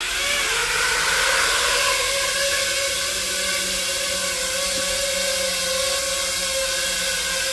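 A 5-inch FPV quadcopter on three-blade HQProp R37 propellers spinning up, lifting off and hovering: a loud, steady motor-and-propeller whine of several tones over a hiss, rising slightly in pitch in the first half second. This is the standard three-blade props' noise, the reference for comparing quieter toroidal props.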